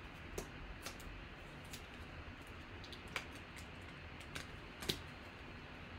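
Light clicks and taps of trading cards and their plastic holders being handled and set down on a table, about eight scattered ticks with the sharpest about five seconds in, over faint room tone.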